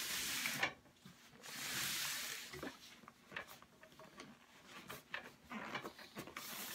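Handling noise from a car seat and its cushion cover being moved and worked on: two rushing sounds of material sliding and rubbing, each about a second long, in the first two and a half seconds, then scattered light clicks and knocks.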